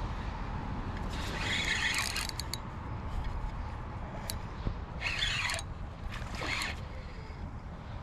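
Penn Spinfisher spinning reel being cranked in against a hooked bass, with a few short louder rasps from the reel about two, five and six and a half seconds in.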